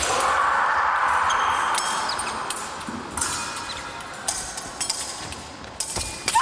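Épée blades clinking and ringing with sharp clicks of contact and footwork on the piste, several times, over a steady background din.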